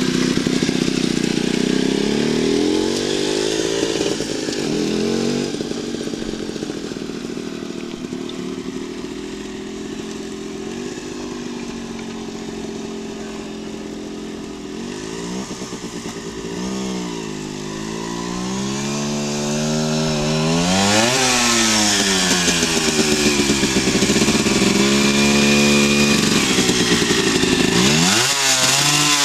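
Honda NSR50's 49cc two-stroke single-cylinder engine being ridden, its buzzing pitch rising and falling with the throttle. Loud as it passes close, fading as the bike moves away across the lot, then growing louder again as it comes back.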